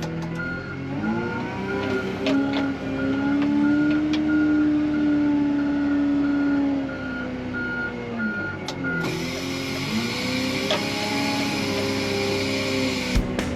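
Wheel loader's diesel engine revving up and down as it works snow with its plow, while its reverse alarm beeps steadily as it backs up; the beeping stops about nine seconds in. A few sharp knocks are heard along the way.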